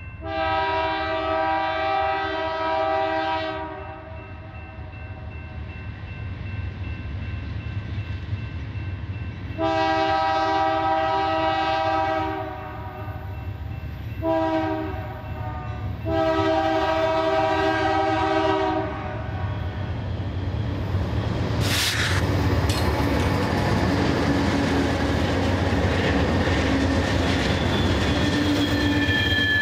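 Three BNSF GE Dash 9 diesel locomotives sound their multi-chime air horn in the long, long, short, long grade-crossing warning, with the diesel engines rumbling underneath. The locomotives then run past under power, and a high, steady wheel squeal comes in near the end.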